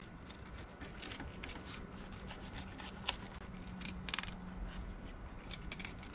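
Fillet knife cutting along a tilefish's backbone: faint scraping with scattered small crackling ticks as the blade works through flesh and bone.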